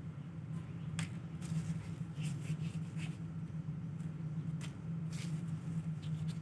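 Paper banknotes handled and rustling in the hands, with a few sharp crinkles about a second in and twice around five seconds in, over a steady low hum.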